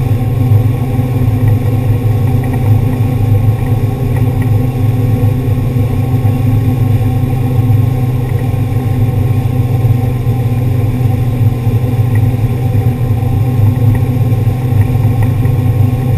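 Wakeboard boat's engine running steadily at towing speed, heard on board: a loud, even, low hum that does not change.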